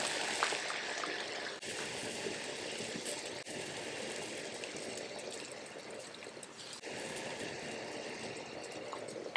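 Water at a rolling boil in a stainless steel stockpot: a steady bubbling, broken briefly three times.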